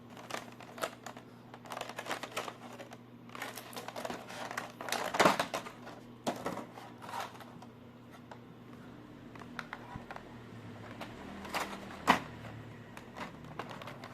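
Toy packaging being handled: runs of quick clicks, taps and crinkles of cardboard and plastic, with two louder snaps, one about five seconds in and one near the end, over a faint steady hum.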